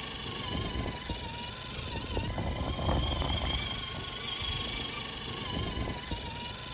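Electric RC crawler truck running on a trail, its motor and gears giving a steady whine whose pitch wavers and dips briefly a few times as the throttle and load change, over low rumbling noise.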